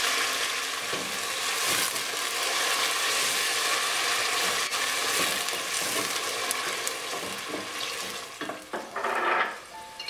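Chopped onion, green chilli and crushed tomato sizzling in a stainless steel pot while a wooden spatula stirs and scrapes across the bottom. The sizzle fades near the end, with a few sharper scrapes.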